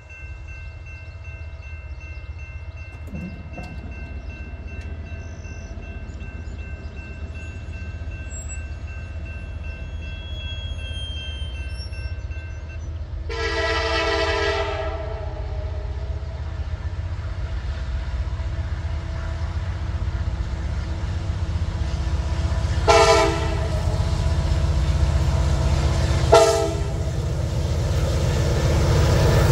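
Loaded CSX coal train approaching with an SD70AC diesel locomotive in the lead: a low engine and rail rumble growing steadily louder, with one long horn blast about halfway through and two short horn blasts near the end.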